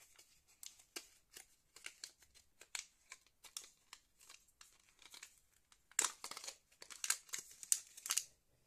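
Packaging crinkling and crackling as it is handled: a run of small irregular rustles that gets louder and denser about six seconds in.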